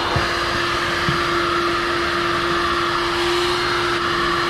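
Red drum-type canister vacuum cleaner running steadily while its hose cleans a car's interior: a constant motor hum with rushing air.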